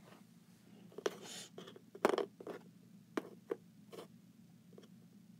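Small plastic toy figures being handled and set down on cardboard: several light clicks and scrapes, the sharpest about two seconds in.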